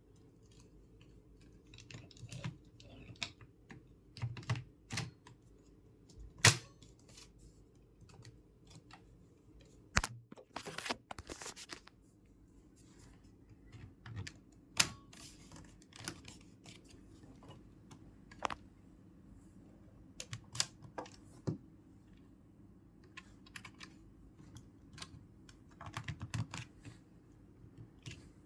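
Irregular clicks, taps and knocks of computer parts being handled and fitted together during assembly, with one sharp loud click about six and a half seconds in and a quick rattling run of clicks a few seconds later, over a faint steady low hum.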